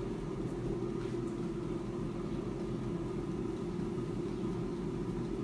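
Klarstein AeroVital air fryer running mid-cook: the steady hum of its circulating fan, with a constant low tone.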